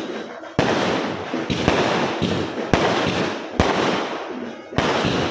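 Firecrackers going off: a rapid, uneven series of about seven sharp bangs, each followed by a long echoing decay.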